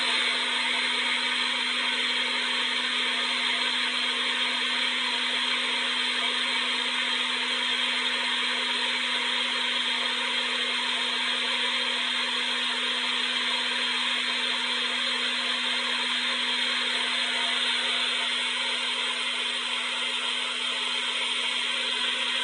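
Hair dryer running steadily: a continuous rush of blown air with a steady low hum from its motor.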